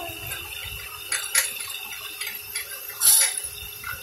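Pressure washer jet spraying water onto concrete and a chain-link fence: a steady hiss with a few sharp spatters, the loudest about three seconds in.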